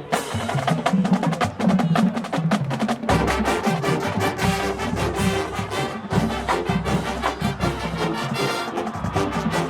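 College marching band playing a fast, percussion-driven passage of quick rhythmic strikes, with a deeper bass layer joining about three seconds in.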